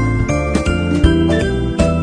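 Background music: an upbeat festive tune with tinkling, bell-like tones over a bass line and a steady beat.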